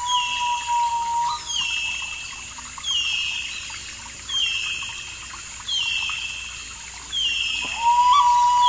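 A bird repeating a short call that slides down in pitch, about once a second. A held flute note sounds at the start, stops about a second and a half in, and comes back near the end.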